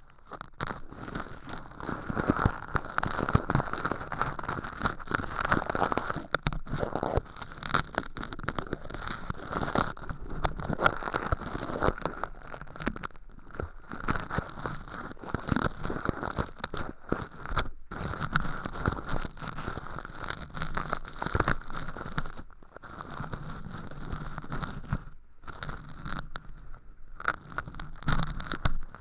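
Ear-cleaning ASMR on a handmade binaural microphone: tools scrape and crackle through thin, crispy sawdust-like flakes packed in the ear canals as fake earwax, the flakes crumbling when touched. A dense run of small crackles and scratches starts abruptly, with a few short pauses.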